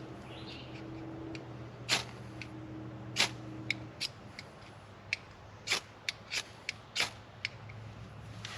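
Irregular sharp clicks and snips from a multi-tool being worked by hand, about a dozen over several seconds.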